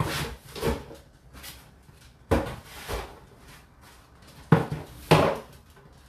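Whirlpool WFO3P33DLXUK dishwasher in its 65 °C main wash: water spray striking the inside of the tub in short surges. The surges come in three pairs, each pair a bit over two seconds after the last.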